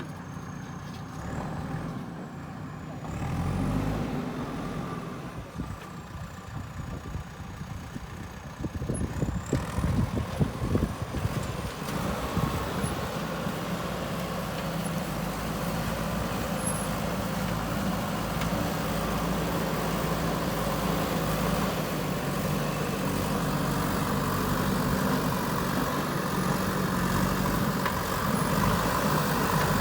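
Diesel engine of a JCB 3DX Super backhoe loader running under load, growing gradually louder, with a stretch of uneven knocking and rattling about nine to twelve seconds in.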